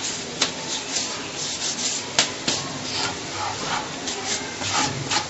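Hands rubbing and raking oiled semolina pellets (berkoukech) across a tray: a dry, scratchy rustle in repeated strokes, with a few sharp clicks.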